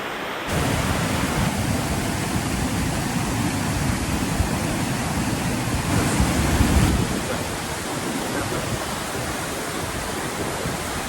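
Waterfall in full spate rushing steadily, with plenty of water coming over the falls. A low rumble comes in about half a second in and swells briefly around six to seven seconds.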